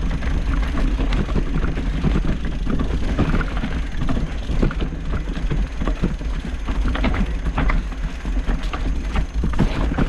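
Mountain bike clattering over a rough trail surface: a dense, irregular run of rattles and knocks from the bike and its tyres on the rough ground, over a steady low rumble.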